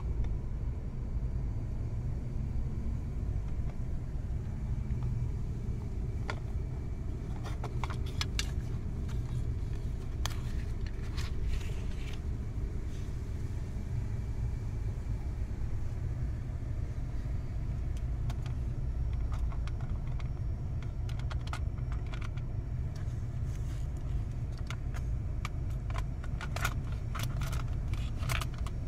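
Plastic cassette tape and its hard case being handled, with scattered light clicks and rattles in bunches, and a Sony Walkman's cassette door near the end, over a steady low rumble.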